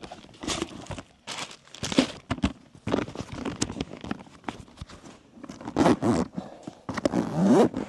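Irregular knocks, clicks and short rustling rasps of food and containers being handled and put back into a cooler, with a short rising squeak near the end.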